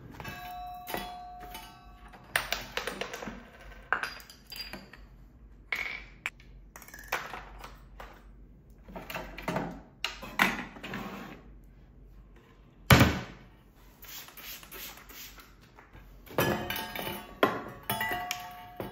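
Kitchenware and small toy dishes clinking and knocking as they are handled, a string of separate clicks and clatters, some with a short ringing ping. One heavy thump about two-thirds of the way through is the loudest sound.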